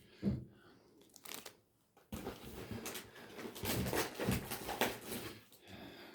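Plastic snack wrappers crinkling as packets are handled: a short burst at the start, then steady crinkling from about two seconds in.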